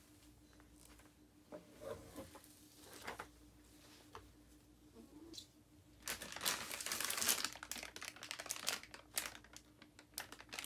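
Soft plastic wet-wipes pack crinkling as a baby pulls it out of a drawer and handles it. It is loudest for about two seconds from six seconds in, then gives scattered smaller rustles and clicks.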